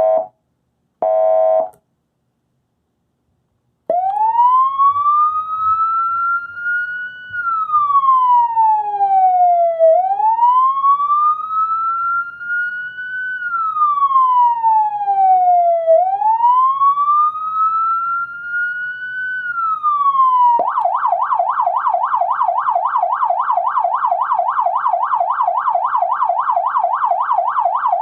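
Code 3 model 3932 electronic siren: a short beep, then after a pause the wail tone rising and falling slowly in three cycles of about six seconds each. About twenty seconds in it switches to a fast yelp, several sweeps a second.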